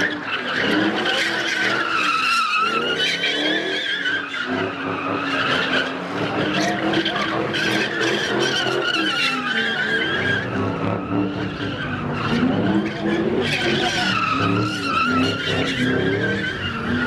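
Car tires screeching continuously as a car drifts, the squeal wavering in pitch, with the engine revving up and down beneath it.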